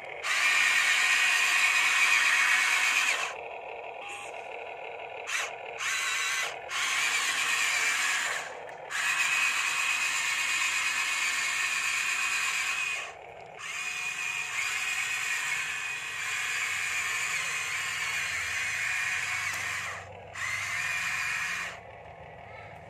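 Geared electric motors of an RC excavator whining in stop-start runs of one to four seconds as the machine moves, with short pauses between runs; the first run is the loudest.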